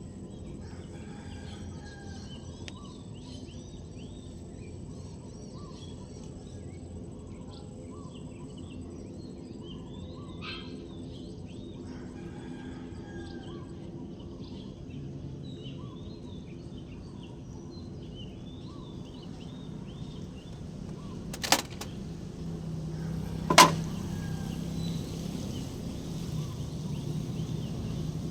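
Diesel engine of a Doosan 190 wheeled excavator running low and steady, with birds chirping over it. Two sharp bangs come about three-quarters of the way through, after which the engine is louder.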